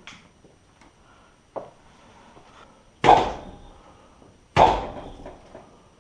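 A dog barking twice, about a second and a half apart, in the second half, echoing off the room's walls.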